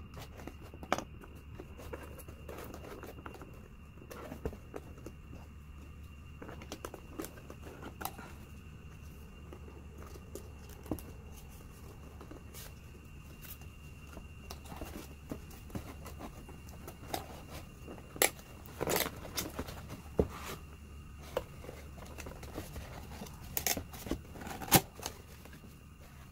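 Unboxing handling sounds: packaging crinkling and tearing, with scattered taps and clicks. A cluster of louder clicks and rustles comes about two thirds in and again near the end.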